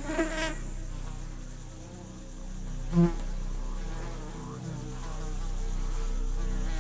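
Flies buzzing steadily around a kangaroo, with one short louder buzz passing close about three seconds in.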